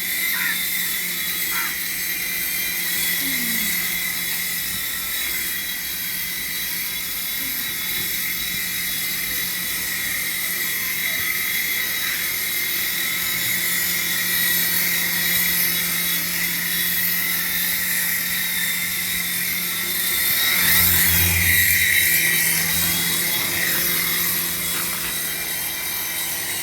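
Small electric motors of a toy remote-control helicopter spinning its rotors: a steady high whine over a low hum, briefly louder about twenty seconds in.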